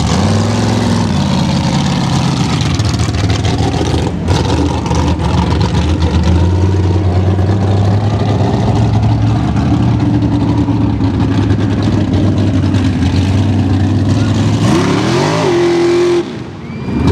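Engine of a mega truck race buggy running hard over a steady hiss of noise, revving up in pitch near the start and again near the end.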